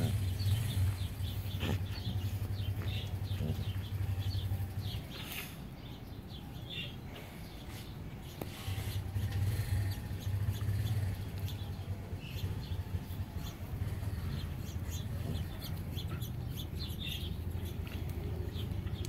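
Two Heeler x Shepherd dogs play-wrestling, mouthing and scuffling on grass, with a low rumble that eases for a few seconds in the middle and many short clicks and snaps.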